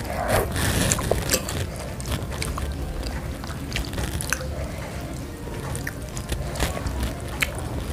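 Close-up eating sounds of spicy chicken noodles and meatballs in broth: wet chewing and mouth sounds, with scattered sharp clicks of a fork and spoon against the plate as a meatball is cut apart.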